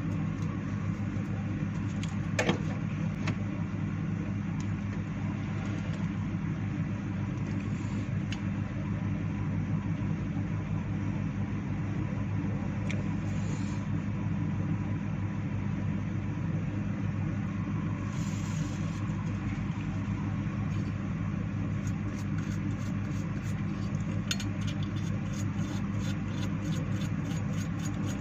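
Steady low motor hum, like a fan running, with scattered small clicks and taps. Over the last several seconds come quick repeated scratchy clicks of a small brush scrubbing a circuit board.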